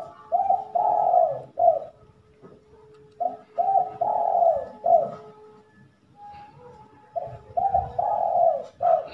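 A dove cooing: three phrases of several coos each, a few seconds apart.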